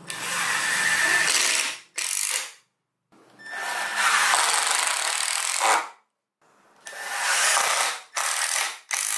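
Cordless power driver driving wood screws into plywood in three runs of one to three seconds, with short follow-up bursts as the screws are snugged down.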